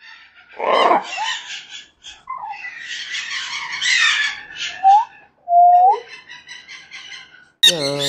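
Parrots calling: a harsh screech about a second in, rough squawking and chatter, and two clear whistled notes around the middle, the first rising and the second held.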